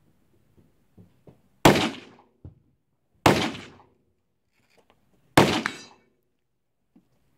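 Three gunshots on an outdoor shooting range, spaced roughly one and a half to two seconds apart, each with a short echoing tail, and faint knocks in between.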